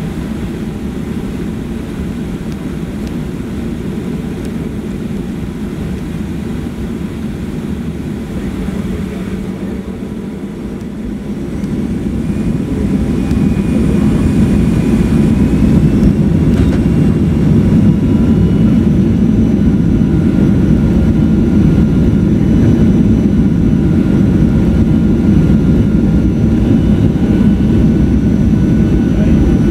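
Cabin noise of a Boeing 737-400 with CFM56-3C1 engines, steady while the jet taxis onto the runway. About twelve seconds in, the engines spool up to takeoff thrust with a rising whine, and the engine noise then stays louder and steady as the takeoff roll begins.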